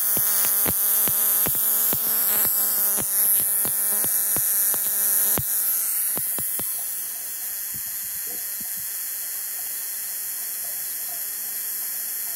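Spark gap of a home-built Don Smith-style generator firing in a regular string of sharp cracks, about three a second, over a steady electrical buzz and high hiss. A little past halfway the cracks stop and the level drops, leaving only the steady buzz and hiss.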